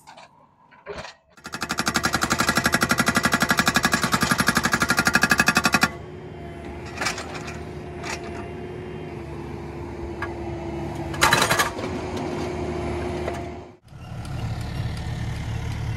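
Hydraulic breaker on a CAT mini excavator hammering rock at a rapid, steady rate for about four seconds, then stopping. The excavator's diesel engine keeps running, with a few single knocks, and briefly drops out near the end.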